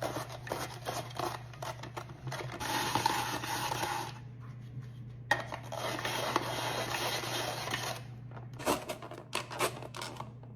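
Rotary cheese grater being cranked, rasping in two stretches of about one and three seconds, with clicks and knocks from handling its parts before and after.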